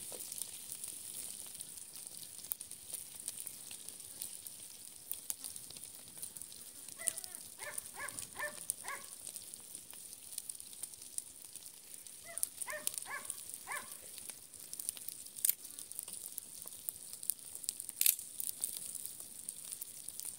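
Dried fish sizzling in oil in a frying pan over a fire, a steady hiss with scattered crackles. Twice, about a third and two thirds of the way in, an animal gives a short run of quick yaps, several a second.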